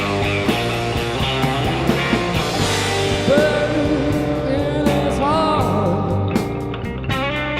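Rock music with electric guitar, a steady beat and a sung or lead-guitar melody line.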